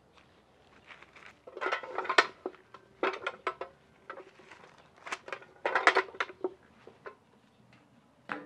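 Hands turning and patting corn tortillas on a metal comal: clusters of quick soft slaps and taps, with one sharper tap near the end.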